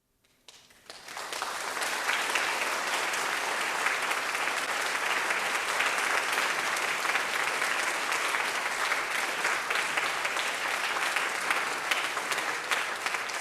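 Audience applauding at the end of a choral performance: the clapping breaks out about a second in from silence, builds within a second and holds steady.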